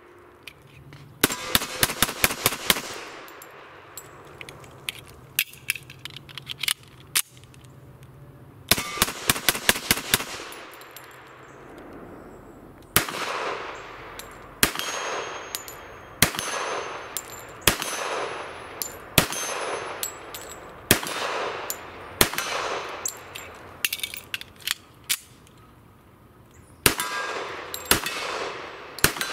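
Colt Gold Cup Trophy 1911 pistol firing .45 ACP: two quick strings of shots, then single shots about a second and a half apart, each followed by a metallic ring from the steel targets.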